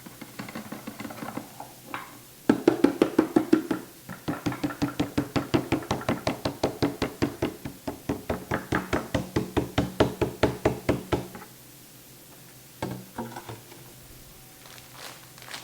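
Rapid, even knocking of a kitchen utensil, about four strokes a second for roughly nine seconds, as powdered sugar is measured out, with a few softer taps before and after.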